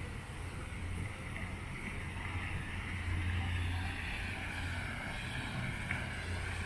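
Large fountain's water jet spraying and splashing into its basin, a steady rushing hiss, with a steady low hum underneath.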